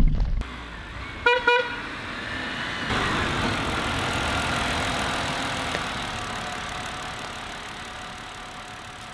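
A loud rumble cuts off at the start, then a car horn gives two short toots about a second and a half in. After that a BMW sedan drives up and slows to a stop, its engine and tyre noise slowly fading.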